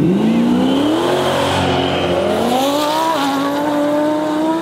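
A twin-turbo Audi R8 and a Chevrolet Camaro launching side by side in a drag race, their engines climbing in pitch at full throttle. The pitch drops twice with upshifts, about a second in and about three seconds in.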